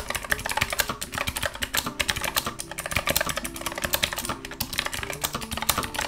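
Fast typing on an M80 Purry Cat mechanical keyboard with Kailh KH Blue clicky switches: a rapid, continuous run of sharp, very clicky keystrokes with a jingly ring, like shaking a bunch of keys on a key ring.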